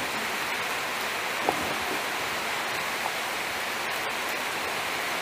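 Steady hiss of broad noise, with a faint click or two.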